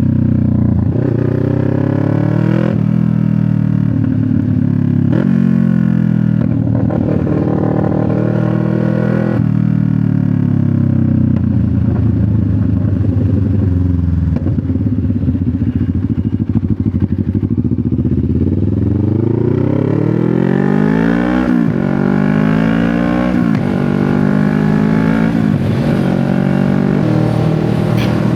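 CFMoto 650NK's parallel-twin engine running through an SC-Project aftermarket exhaust while riding. It pulls up through the gears with the pitch climbing and dropping at each shift, holds a steady note for a while, winds down, then climbs through the gears again near the end.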